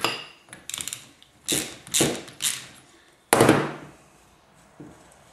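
Sharp metallic clicks and clanks from hand tools: a socket ratchet clicking and being set down on the workbench, with the loudest clank about three seconds in and a short ring after it.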